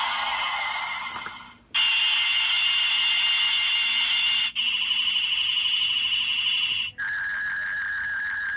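Electronic sound effects from an Ultraman Z transformation toy's small speaker, played after medals are scanned. It gives a run of held synthetic tones in four stretches, each breaking off and starting again, the last one lower in pitch.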